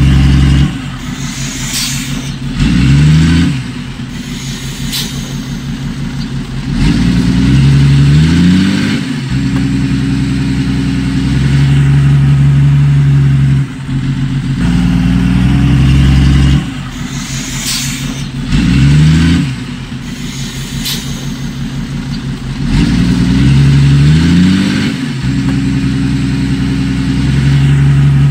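Diesel engine of heavy earthmoving machinery, revving up and falling back again and again as the load changes. A few short, sharp high-pitched squeaks or clanks come through over it.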